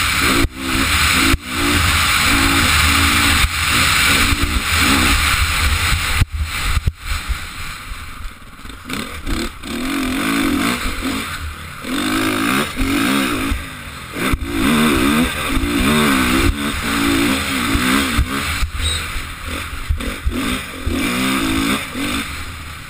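Motocross bike engine, heard from a camera mounted on the bike, revving up and dropping back again and again as it is ridden, with a steady rushing noise over it.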